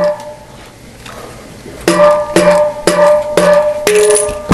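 Non-metal mallet tapping the axle out of a BMX freecoaster hub. The first tap falls at the very start, followed by a pause of about two seconds, then five more taps at about two a second, each with a short ringing tone.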